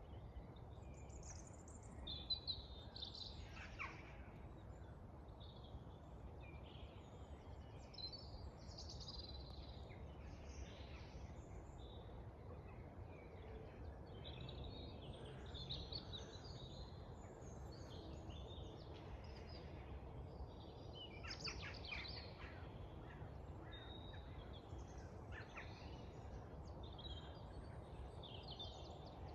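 Dawn chorus: many small songbirds singing and calling at once, faint, a jumble of overlapping chirps and warbles over a low, steady background noise.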